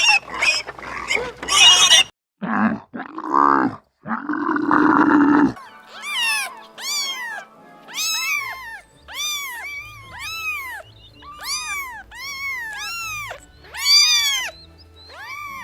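Animal calls in quick succession: harsh squeals, a short low growl, then a long run of high calls, each rising and falling in pitch, about two a second.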